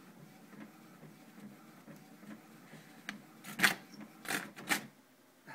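Printer running a print job: a soft mechanical whirr pulsing about twice a second, then several louder clacks in the second half.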